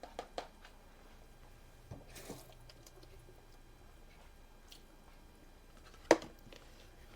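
Quiet kitchen handling sounds: a few soft clicks, a brief wet squish about two seconds in, and a sharper knock about six seconds in.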